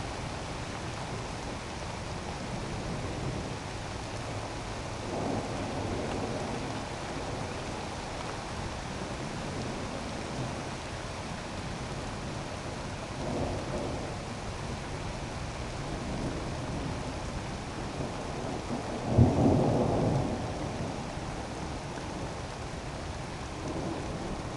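Thunderstorm: steady rain hissing, with rumbles of thunder swelling up about five and thirteen seconds in and a sudden, much louder thunderclap about three-quarters of the way through.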